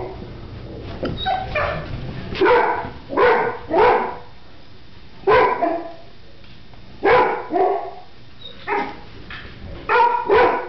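Mastiff puppies barking in short bursts of two or three barks with pauses between, about a dozen barks in all. It is the wary barking of dogs afraid of a cat.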